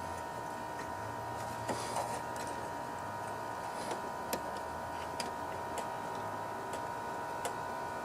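Light, scattered clicks and taps from hands working the Briggs & Stratton mower engine's automatic choke, which is stuck wide open and not engaging, over a steady background hum.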